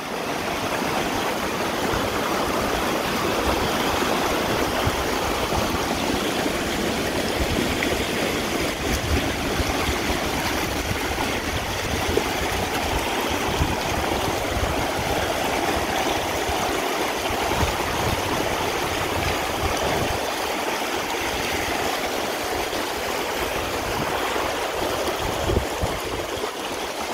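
Shallow river running over rocks and stones, a steady rushing water sound.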